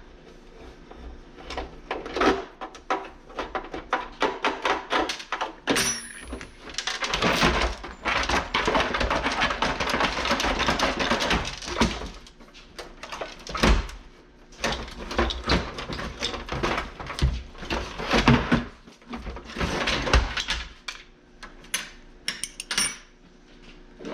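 Metal clanking and clicking of a hand wrench working the nuts off a dehumidifier compressor's mounting studs, with knocks and rattles as the compressor is worked loose. A long stretch of dense rattling and scraping comes in the middle.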